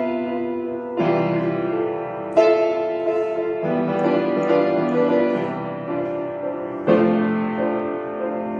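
Solo piano playing slow, held chords. A new chord is struck every second or few, each left to ring into the next.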